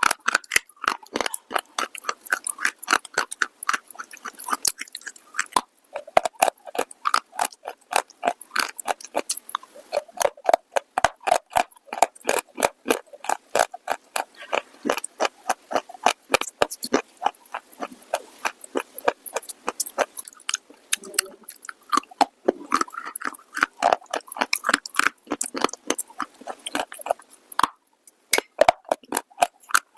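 Close-miked crunching and chewing of a hard, brittle clay-like material, with many sharp crunches a second. There are softer chewing stretches in the middle and a brief silence near the end.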